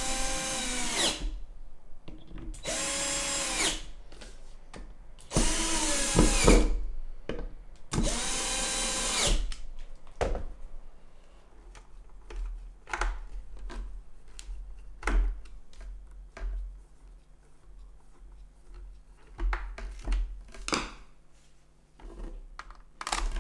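Power drill boring holes through a plywood tabletop: four short runs of about a second each, the motor pitch sagging as the trigger is let off. After that come small clicks and knocks from a hand screwdriver fixing a power strip to a wooden table leg, and from the cord being handled.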